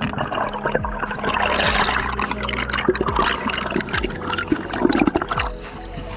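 Underwater rush and gurgle of air bubbles streaming past a diver's camera during an ascent, crackling and bubbling densely. It thins out near the end as the camera breaks the surface.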